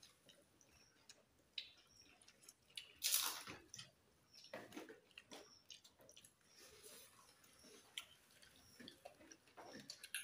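Quiet eating sounds of several people eating rice and curry with their hands: scattered wet smacks of chewing and fingers working food on plates, with a louder, short noisy sound about three seconds in.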